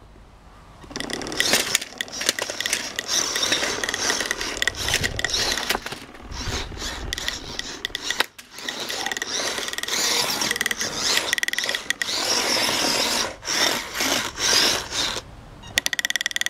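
Beetleweight drum-spinner combat robot driving and running its weapon: whirring, rattling motor and drivetrain noise with many knocks, starting about a second in and breaking off briefly partway through.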